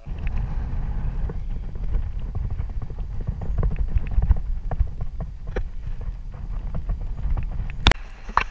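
Low rumbling handling noise with scattered knocks, from an action camera being moved along a jetty railing; a sharp click near the end.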